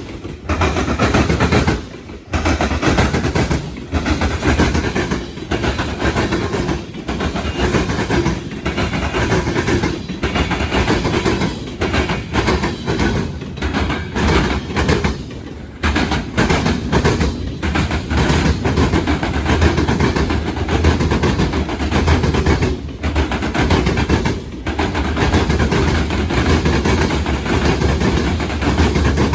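Freight train passing at speed, its wheels clattering over the track, with strong wind buffeting the microphone.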